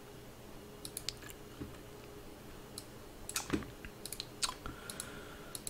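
Scattered clicks from a computer mouse and keyboard, several coming in quick little clusters.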